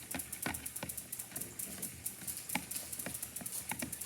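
Scattered light clicks and taps of a plastic speed cube timer being handled, its battery compartment opened.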